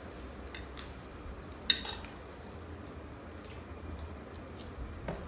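Metal spoon clinking and scraping against a metal plate of noodles: a few light clicks and one sharp clink with a short ring about two seconds in.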